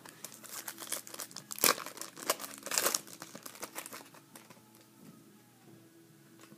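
Plastic trading-card pack wrapper crinkling and being torn open, in a run of irregular crackles that is loudest in the first three seconds and dies down after about four.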